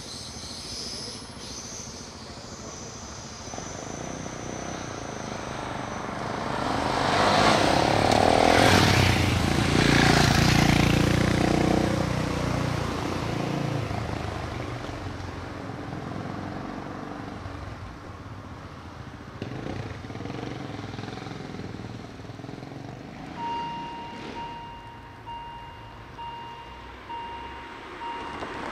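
Road traffic at a level crossing: a motor vehicle passes close by, swelling to the loudest point about eight to eleven seconds in and fading away. Near the end a repeating electronic beep starts, about one beep a second.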